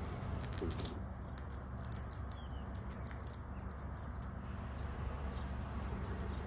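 Black squirrel gnawing a roasted peanut in its shell: a run of small sharp crunching clicks for a few seconds, ending a little past halfway, over a steady low hum.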